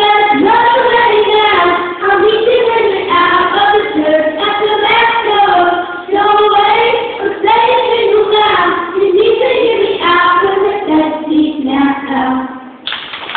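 Children singing a song together, one melody line in sustained phrases with short breaths between them.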